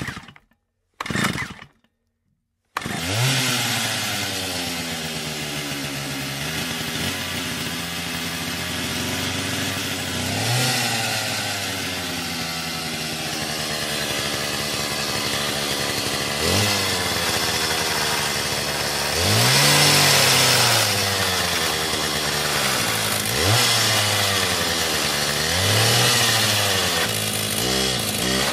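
Petrol chainsaw engine: two short bursts, then the saw runs steadily from about three seconds in. It is revved several times, its pitch rising and falling with each blip of the throttle, and the revs flutter quickly near the end.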